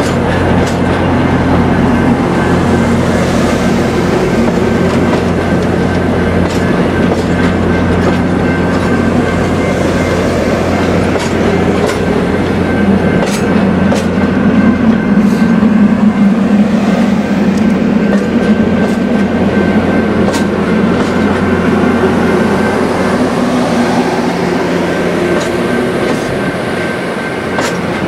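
Stainless-steel passenger coaches rolling slowly past, their wheels clicking now and then over rail joints, over a steady low hum from the train.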